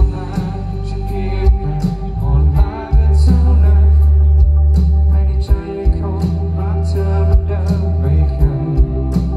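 Thai pop-rock band playing live over a large outdoor sound system: drums, bass and electric guitars, with a male voice singing.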